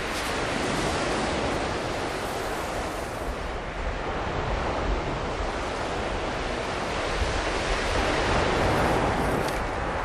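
Sea surf breaking and washing up a shingle beach, swelling louder about a second in and again near the end.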